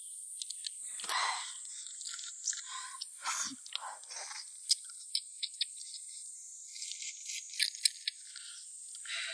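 Cooked crayfish shells crackling and snapping as they are peeled apart by hand: many sharp irregular clicks, with a few short bursts of sucking and chewing.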